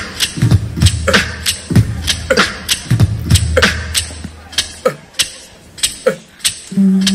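Live-looped beatbox beat built on a loop station: vocal kick drums and sharp hi-hat and snare hits in a steady rhythm over a low bass loop. The bass drops out about two-thirds of the way through, and a steady held low note comes in near the end.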